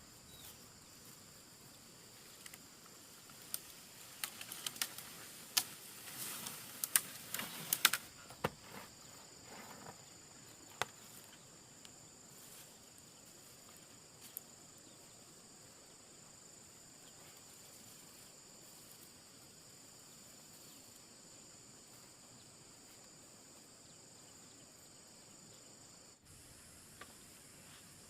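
Insects droning steadily in two high-pitched bands. From about four to eleven seconds in, a cluster of sharp snaps and crackles, like vegetation being broken or trodden.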